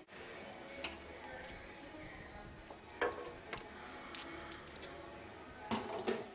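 Scattered sharp clicks and knocks, the loudest about three seconds in and a cluster near the end, over a faint steady background hum.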